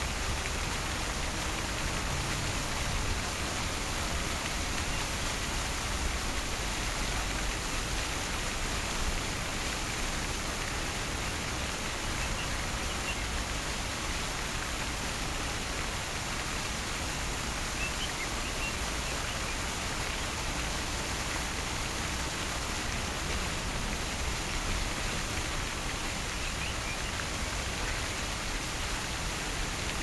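Fountain water falling and splashing into its basin in a steady, even rush like white noise.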